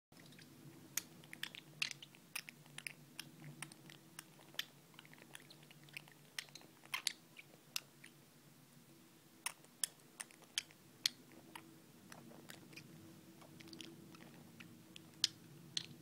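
Green-rumped parrotlet making many short, sharp clicks at an uneven pace, several a second in spells, with brief pauses between.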